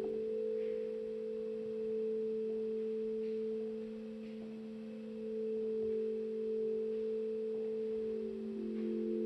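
Candle organ's electronic tones: a steady low pure-tone drone held under a higher pure tone that steps between several pitches, with each pitch set by where a tea-light stands on the table. The higher tone moves lower near the end.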